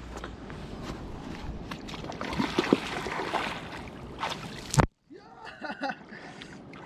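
Water splashing and sloshing around a person wading in a shallow river, with a few sharp knocks. The sound cuts out abruptly for a moment about five seconds in.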